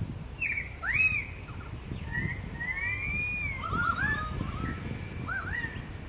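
Pied currawongs calling: a run of whistled notes that rise and fall in arches, overlapping and sometimes coming in quick series, from about half a second in until near the end.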